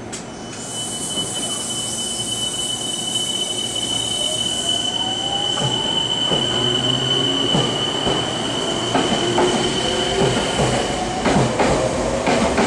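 Meitetsu 3100-series and 3700-series electric train pulling away from the platform. A high steady whine holds for most of it. From about a third of the way in, the motors' whine rises in pitch as the train speeds up, and the wheels start clicking over the rail joints more and more.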